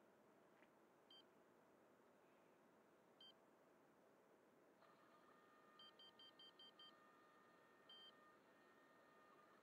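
Faint electronic beeps from the RC helicopter's onboard electronics (flight controller and ESC) as they power up after the flight battery is connected. Single short beeps are followed by a quick run of six about 6 s in and one more near the end, over a faint steady tone that comes in about 5 s in.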